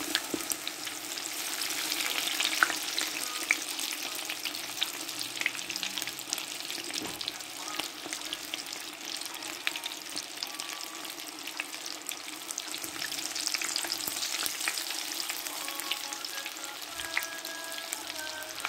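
Rice-and-flour batter fritters deep-frying in hot oil: a steady sizzle full of small crackles and pops, with one louder pop about two and a half seconds in.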